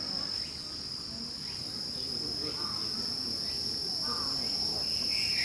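Insects trilling steadily at one high pitch, with faint distant voices in the background.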